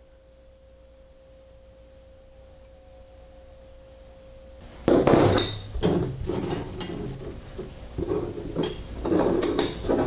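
Chrome-steel Craftsman combination wrenches clanking and clinking as they are handled and set down, starting suddenly about halfway through with a sharp clank, then repeated knocks. Before that there is only a faint steady tone.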